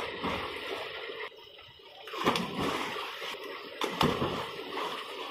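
People jumping and thrashing in a concrete tube-well tank, with sudden loud splashes at the start and again about two and four seconds in. Under them is the steady rush of water pouring from the tube-well pipe into the tank.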